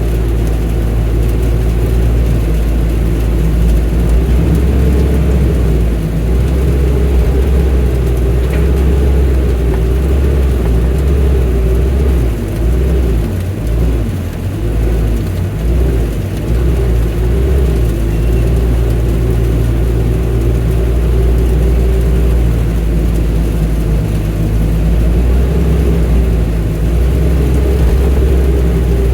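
Excavator's diesel engine running steadily under work, with a wavering whine above the engine note. The low engine sound falters and recovers briefly about halfway through.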